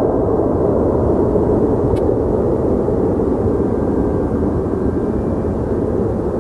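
Airbus A320's twin turbofan engines at takeoff-climb power: a steady, deep jet rumble from an airliner climbing away, slowly fading.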